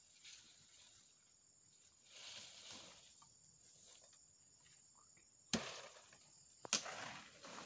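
Hands working at a motorcycle's rear chain and sprocket make faint rustling and handling noise. Two sharp metallic clicks come about a second apart, the second near the end.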